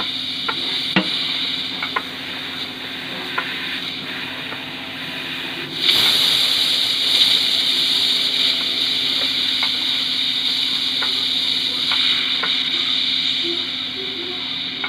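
Opened CVT transmission running with its oil pan off: a steady hiss over a low hum, with transmission fluid spattering, the hiss growing louder about six seconds in.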